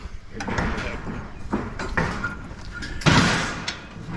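Scrap metal being shifted and scraped on a trailer, with irregular knocks and a louder scrape about three seconds in.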